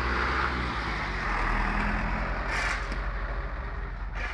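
Steady engine rumble of a motor vehicle running, easing off slightly near the end.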